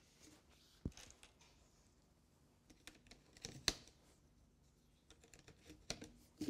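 Light plastic clicks and rustling as a corrugated plastic air duct is pushed into a plastic ventilation manifold's spigot and clipped in place. A few sharp clicks, the loudest near the middle.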